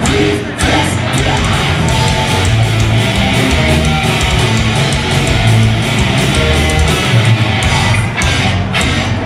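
Heavy metal band playing live, with electric guitars, bass guitar and drums in an instrumental stretch without singing.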